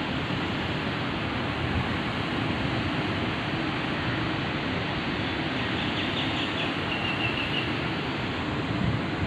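Steady outdoor street ambience: a constant noisy hiss with no distinct events, and a few short bird chirps about six to seven and a half seconds in.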